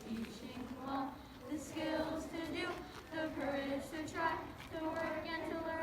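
A group of children and adults singing a school song together, with held, sustained notes.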